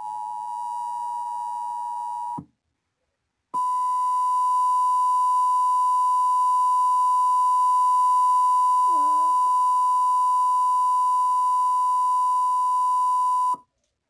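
Emergency Alert System test tones played through a TV. The two-tone attention signal cuts off about two seconds in. After about a second of silence, a single steady tone near 1 kHz sounds for about ten seconds and then cuts off suddenly.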